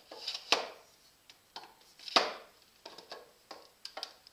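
Steel woodturning chisels with wooden handles being set into the holes of a painted tool rack: a string of knocks and clatters. The two loudest come about half a second and two seconds in, followed by lighter taps.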